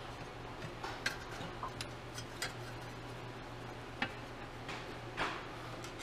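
Scattered light clicks and taps of hand tools and small metal parts as parts are fitted to a small engine on a workbench, about ten in a few seconds, over a steady low hum.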